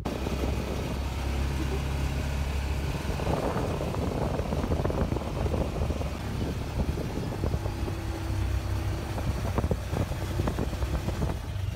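Side-by-side utility vehicle driving over sand: a steady engine drone, with short knocks and rattles from the body over bumps that come more often from about four seconds in.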